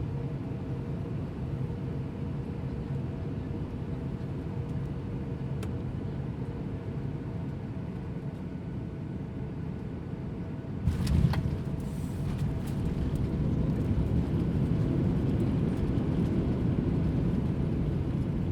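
Steady airliner cabin noise: a low engine and air drone with a faint steady hum. About eleven seconds in, a brief cluster of knocks and rattles, after which the rumble runs louder.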